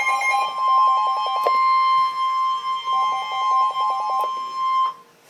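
NOAA Weather Radio warning alarm, a steady single tone at about 1050 Hz, cutting off abruptly about five seconds in. Two spells of rapid pulsing beeps at a lower pitch sound over it. The tone signals that a warning message follows.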